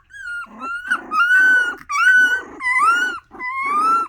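Miniature Australian Shepherd puppies yowling and whining: a run of about five loud, drawn-out pitched cries, each under a second, with a rough, growly edge.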